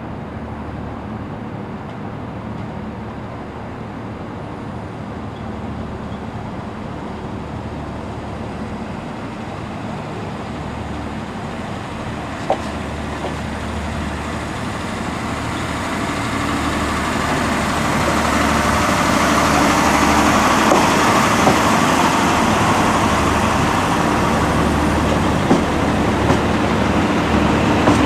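Northern Ireland Railways diesel multiple unit running into the station. Its diesel engines and wheels on the rails grow steadily louder as it comes alongside, and are loudest over the last third. A single sharp click is heard about halfway through.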